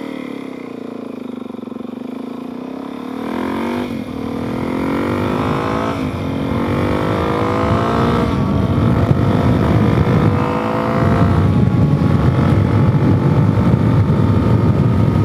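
Suzuki DRZ400S single-cylinder four-stroke engine accelerating through the gears. Its pitch climbs and drops back at each upshift, about four and six seconds in and again near twelve seconds, while wind noise builds as speed rises.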